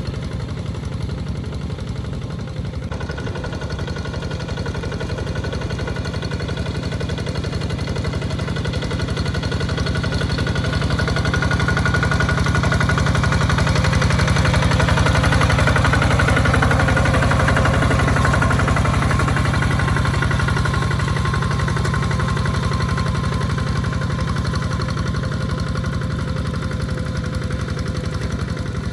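Walking tractor's single-cylinder diesel engine running steadily under plowing load. It grows louder through the middle, peaking about halfway, then fades slightly as it moves away.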